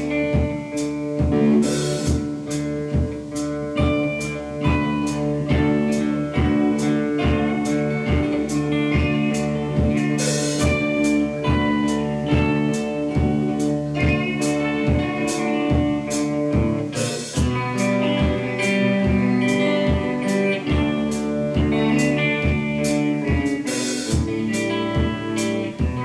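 Live band playing an instrumental passage: guitars with held, sliding notes over a steady drum beat of about two hits a second.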